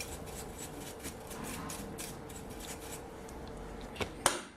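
Metal filings being brushed off a key-duplicating machine after cutting: a run of quick scratchy strokes over a faint steady hum, ending with two sharp clicks near the end.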